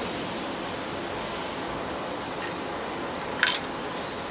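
A spanner clinks once, short and sharp, against the terminal nuts in the vacuum pump motor's terminal box about three and a half seconds in, over a steady background hiss.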